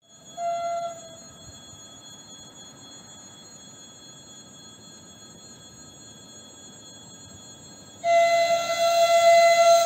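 Ivolga (EG2Tv) electric train's horn sounding as the train approaches. A short toot comes about half a second in, then a long, much louder blast from about eight seconds in, each a single steady tone.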